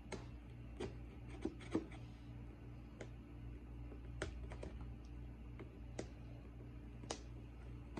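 Cardboard box being opened and handled: scattered irregular clicks and scrapes of packaging over a steady low hum.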